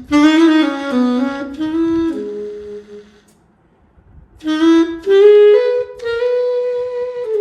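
Sampled saxophone from the VHorns virtual instrument, played live from an EWI wind controller. It plays a short melodic phrase of stepwise notes, pauses for about a second and a half, then plays a second, higher phrase that ends on a long held note.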